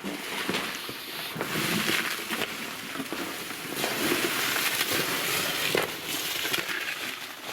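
Footsteps crunching on loose rock and gravel on a mine tunnel floor, with many small scrapes and clicks.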